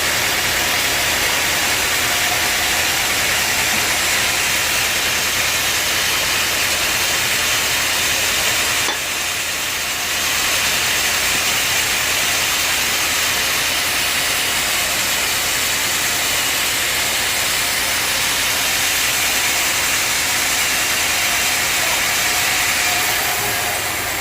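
Sawmill machinery running steadily: a loud, even hiss with a low motor hum underneath. The sound drops briefly about nine seconds in, then picks up again.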